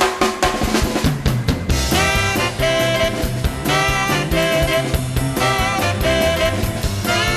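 Swing band playing: a short drum passage opens, then horns and a bass line come in about two seconds in.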